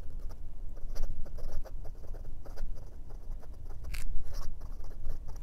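Fountain pen's 14k gold nib scratching across notebook paper in quick cursive strokes: a run of short, irregular scratches, with one sharper scratch about four seconds in. This is the 1952 Sheaffer Craftsman TipDip Touchdown being test-written on its very wet feed.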